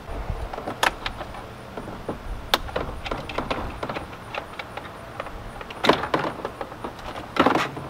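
Sharp plastic clicks and knocks as a van's door trim panel is handled and the wiring connectors behind it are unplugged. The loudest is a short clatter near the end.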